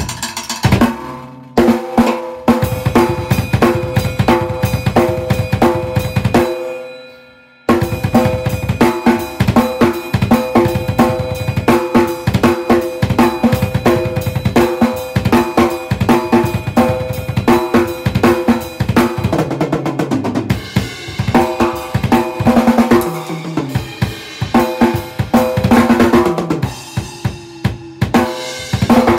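Acoustic drum kit played fast and busy: snare, bass drum, toms and cymbals in dense patterns. The playing breaks off for about a second roughly six and a half seconds in, then starts again.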